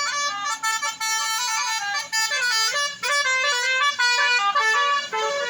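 Bus telolet horn, a multi-trumpet air horn, playing a quick tune of stepping notes, several pitches sounding together throughout.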